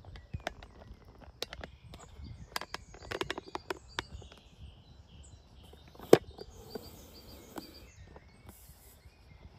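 Footsteps on a park path, irregular short crunches and clicks, with small birds chirping in short bursts and a low background rumble. One sharper, louder click comes about six seconds in.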